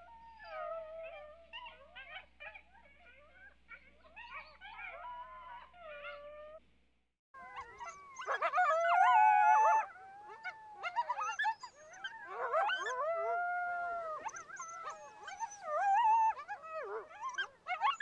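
Coyotes howling and yipping, with several wavering, gliding calls overlapping at once. The calls break off briefly about seven seconds in, then return louder.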